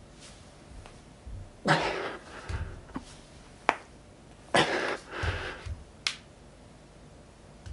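A man breathing out hard as he lifts a 20 kg kettlebell from a squat to standing: two loud puffs of breath about three seconds apart, the second trailing into a shorter one. Between them come a few sharp clicks and soft low thumps.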